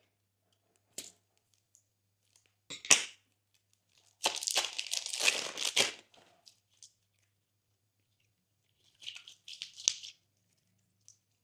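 Glossy slime being squished and pulled by hand, giving sticky clicks, air-bubble pops and crackles in separate bursts. There is a single click about a second in and a louder pop near three seconds. A longer run of crackles follows from about four to six seconds, and another cluster comes near the end.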